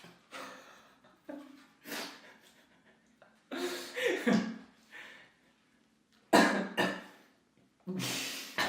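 A person coughing and breathing out sharply in a string of sudden bursts, about five times, the loudest a little past the middle: coughing set off by the heat of ghost pepper chicken.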